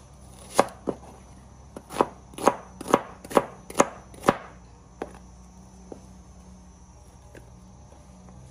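Kitchen knife slicing a red onion on a plastic cutting board: about eight sharp chopping knocks at an uneven pace over the first four seconds or so, then only a few faint taps.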